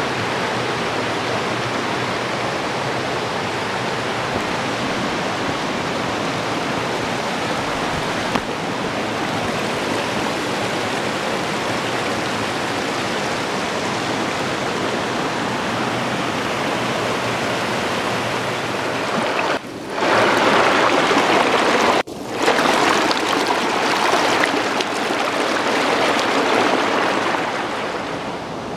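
Small river cascading over rock ledges, a steady rush of water. It gets louder about two-thirds of the way through, with two sudden brief dropouts.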